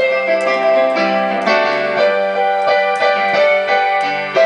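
Piano playing an instrumental passage of a slow ballad, with chords and melody notes struck about twice a second and left to ring.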